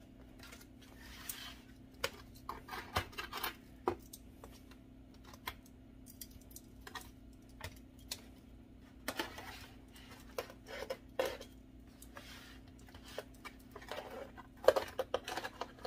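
Metal tongs clicking and scraping against a disposable aluminium foil pan as braised turkey legs are turned over, in scattered clusters of clicks that grow busiest near the end, over a faint steady hum.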